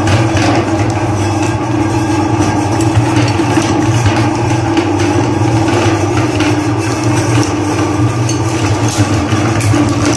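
Electric meat grinder's motor running with a steady hum as it grinds chocolate-coated ice cream cones, with a fine crackle of crunching through it.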